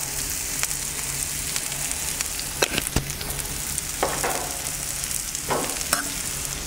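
Sliced onions sizzling in butter on a hot cast-iron griddle plate: a steady frying hiss with a few sharp pops and crackles.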